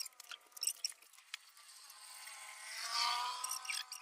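A motor vehicle's engine hum with a few steady, slightly wavering tones, swelling as it passes about three seconds in, with scattered light clicks and a few brief high chirps.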